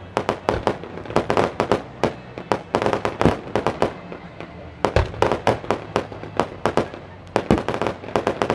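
Aerial fireworks going off in rapid volleys of sharp bangs and crackles, one after another, easing briefly around four seconds in before a heavy thump and another volley about five seconds in.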